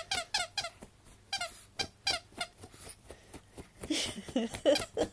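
A squeaky toy porcupine squeaking again and again as a dog paws at it through a sheet. The squeaks come quickly and regularly, about four a second, each falling in pitch, with a lower, rougher sound about four seconds in.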